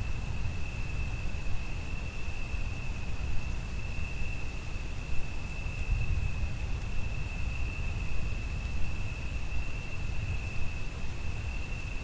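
Crickets calling in one steady, unbroken high trill, over a continuous low rumble.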